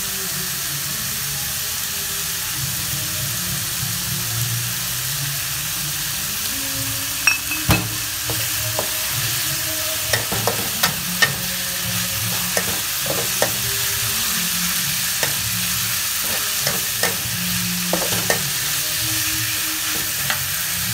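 Minced pork and wood ear mushrooms sizzling in a metal wok as a metal spatula stirs them. From about seven seconds in, the spatula clinks sharply against the pan in scattered strokes.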